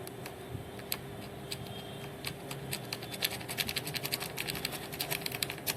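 Irregular small clicks and scratches of hand tools working on a circuit board, coming faster in the second half, over a steady low hum.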